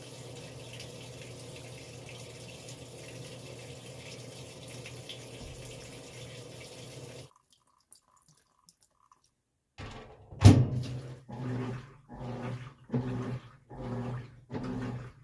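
Roper washing machine filling: water runs steadily into the tub over a low hum, then cuts off about halfway through. After a short pause the agitator starts, its motor churning in strokes about once a second, with a loud knock as it begins.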